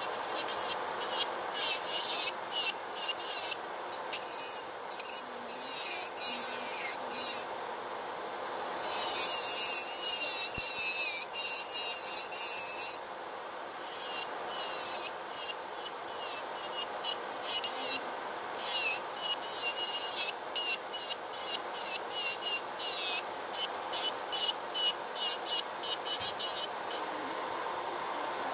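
Electric nail drill's sanding bit grinding acrylic off nails in many short passes, several a second, with a longer unbroken pass near the middle; this is the removal of a full acrylic set. Under it runs the steady whir of the Makartt nail dust collector fan, which carries on alone once the filing stops near the end.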